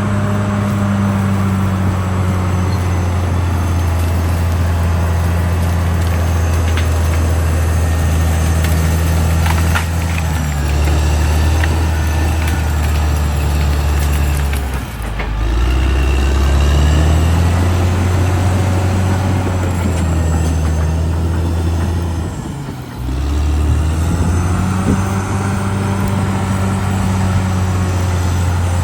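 CAT D6R XL bulldozer's diesel engine running under working load. Its pitch shifts as the load changes, dipping briefly about halfway through and again near the three-quarter mark before picking back up, with some faint clanks along the way.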